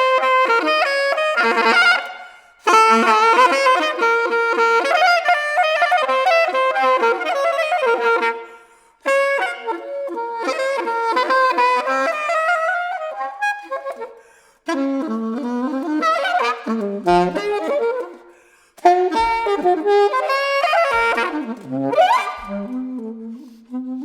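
Solo saxophone playing fast, dense improvised phrases of a few seconds each, broken by short pauses for breath, with a quick upward glide near the end.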